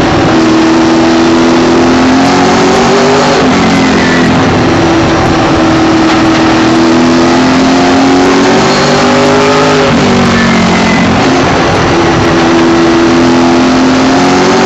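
Late model race car's V8 engine, loud from inside the cockpit, running hard at racing speed. Its pitch sags and climbs again a couple of times as the throttle is lifted into the turns and reapplied.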